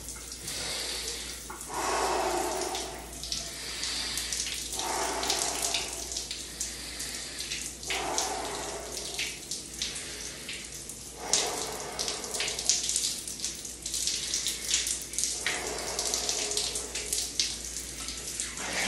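Cold shower running, the spray splashing steadily over a person standing under it, swelling in loudness every few seconds.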